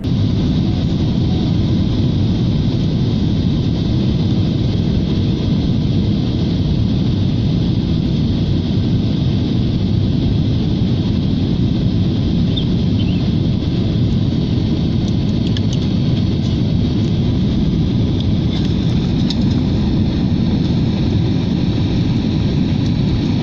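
Steady roar of an airliner's engines and rushing air heard inside the cabin, with a faint high steady whine on top.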